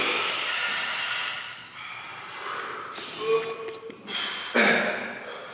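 A person's sharp, loud breath out about four and a half seconds in, after a steady hiss that fades about a second and a half in and a short hummed tone.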